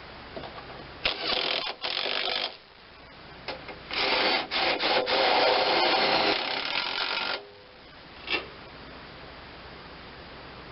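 Handheld power tool running in two bursts, the first about a second and a half long and the second about three and a half seconds, driving fasteners home during assembly of a mower deck. A single short sharp sound follows near the end.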